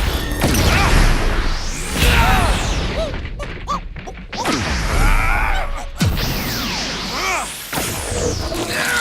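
Layered cinematic fight sound effects: heavy punch impacts and crashes with deep booms, mixed with whooshes and energy-blast sweeps that rise and fall in pitch, packed closely together.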